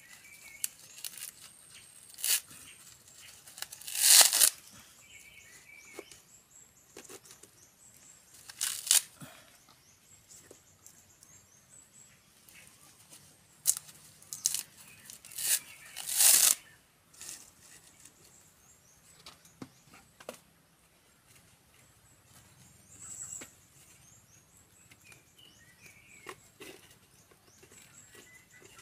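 Dry coconut husk being torn apart by hand, a series of short, ragged rips at irregular intervals, the loudest about four seconds in and a cluster of them between fourteen and seventeen seconds.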